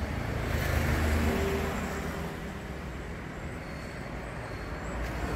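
Rumble of road traffic, swelling about a second in as a vehicle passes, then settling to a steady background noise.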